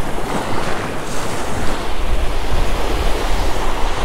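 Small ocean waves breaking and washing up a sandy beach, with wind buffeting the microphone as a steady low rumble.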